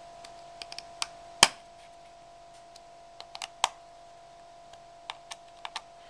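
Precision screwdriver tightening tiny screws into an iPod Touch's metal LCD backing plate: a string of small, irregular clicks and ticks of the driver tip on the screw heads, the sharpest about a second and a half in and just before four seconds in.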